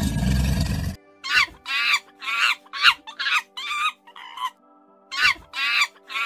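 A loud low rumbling roar that cuts off at about one second. Then a rapid run of short, harsh animal calls, each falling in pitch, about two or three a second, in two bouts with a brief pause past the middle.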